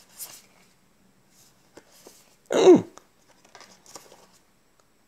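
Trading cards being flicked and slid through by hand, faint rustles and ticks of card on card. About two and a half seconds in, a short voiced sound from the man, falling in pitch, like a hum or throat-clearing grunt, is the loudest thing.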